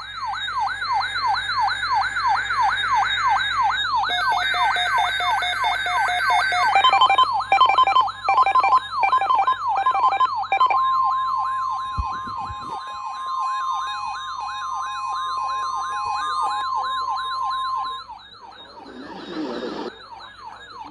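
Electronic siren wailing up and down fast, about three sweeps a second, layered with a few short buzzing bursts and then a steady single-pitch alert tone held for about seven seconds, the kind of tone NOAA Weather Radio sounds before a severe weather announcement.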